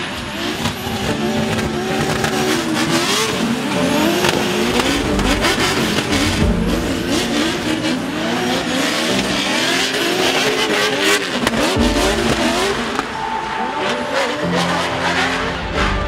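Drift car engine revving hard, its pitch swinging rapidly up and down as the driver works the throttle through a slide, with tyres squealing.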